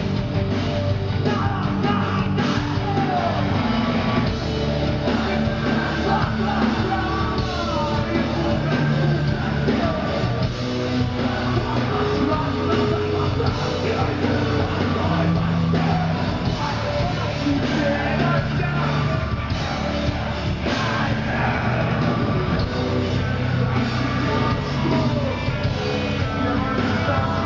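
Heavy rock band playing live, loud and steady, with yelled singing over the music.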